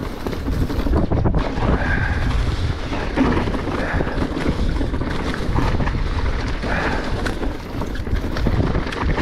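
Riding noise from a Rocky Mountain Altitude Powerplay e-mountain bike on a fast descent: a steady rush of wind on the camera microphone over the rumble of the tyres rolling across leaf litter and stones, with scattered knocks from the bike over the rough ground.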